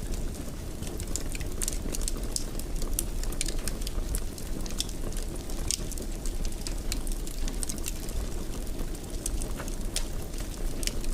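Wood fire in a fireplace crackling, with frequent sharp pops and snaps over a steady low rumble of burning flames.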